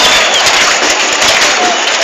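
Loud crowd noise of a protest march: many voices with clapping and cheering. A thin high tone sounds briefly at the start.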